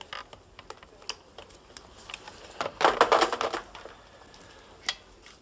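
Scattered sharp clicks of typing, with a louder clatter lasting about a second in the middle.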